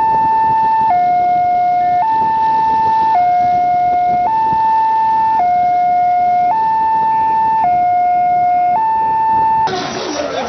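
Two-tone hi-lo vehicle siren, alternating between a higher and a lower note about once a second. It cuts off abruptly near the end.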